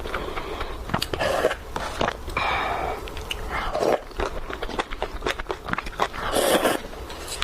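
Instant noodles being eaten: wet chewing with short mouth clicks and several half-second slurps.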